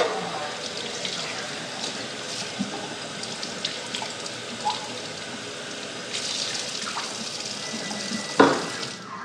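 Water running from a tap into a sink, with scattered small clicks, growing louder about six seconds in and shut off sharply near the end. Two loud knocks: one at the very start and one about a second before the water stops.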